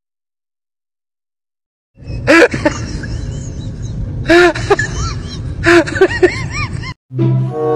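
About two seconds of silence, then a steady outdoor noise carrying repeated short animal cries that rise and fall in pitch, with a few sharp loud bursts. String music starts near the end.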